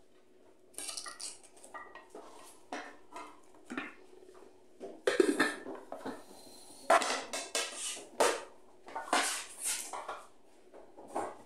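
Irregular clinks and knocks of metal cookware on a stone countertop, including a domed, gold-coloured hammered metal lid being set on its serving pot. The louder clatters come about halfway through and again later on.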